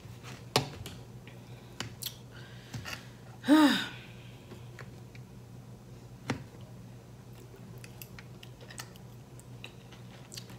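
Metal fork clicking and scraping against a glass platter while picking meat off a roasted turkey leg, in scattered taps. A short rising-then-falling voiced "mm" sounds once about three and a half seconds in.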